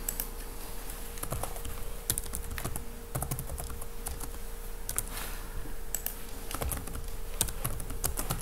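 Typing on a computer keyboard: irregular runs of keystrokes with short pauses, over a faint steady electrical hum.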